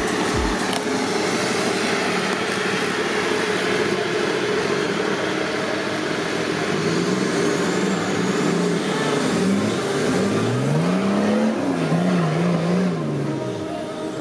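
Off-road race buggy engines revving hard on a muddy climb, the engine pitch rising and falling over and over through the second half.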